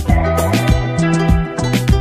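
Background music: an upbeat track with a steady drum beat over a bass line.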